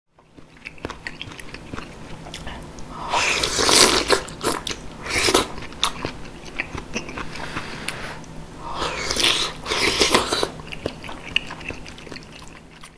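Close-miked eating of spicy beef soup (yukgaejang) with a spoon: chewing, small clicks and crackles, and two longer, louder airy passes of blowing on and slurping the hot soup, about three seconds in and again about nine seconds in.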